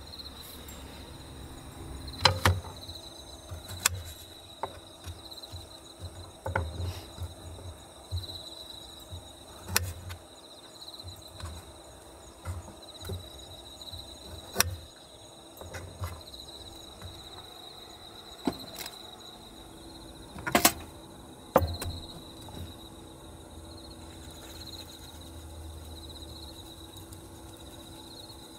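A steady high insect trill runs throughout. Over it come scattered clicks, taps and soft knocks from handling garlic cloves, a knife and utensils on a small plate and a wooden table, with a few sharper knocks about two seconds in and again about two-thirds of the way through.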